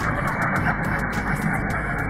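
Background music with a beat running throughout.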